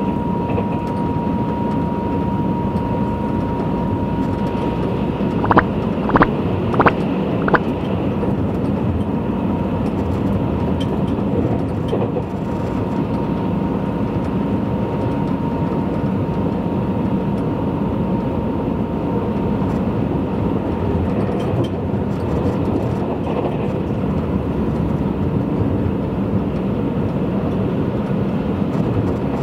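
Tobu Spacia limited express train running at speed, heard from inside the passenger cabin: a steady rumble of wheels and motors with a thin high whine that fades out about two-thirds through. Four sharp clicks come in quick succession a quarter of the way in.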